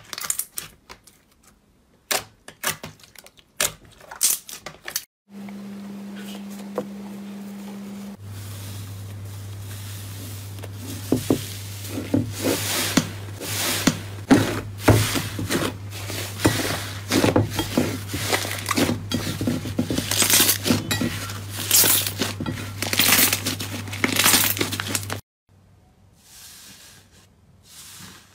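Thick slime kneaded and squeezed by hand, making sticky clicks and crackling pops. The pops are densest and loudest in the middle stretch, where a steady low hum runs beneath them.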